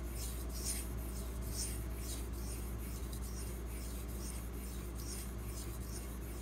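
Steel knife blade (Benchmade Mini Griptilian, 154CM steel) stroked back and forth across a wet Pride Abrasives 6000-grit water stone, a repeated scraping hiss with each pass. A steady low hum runs underneath.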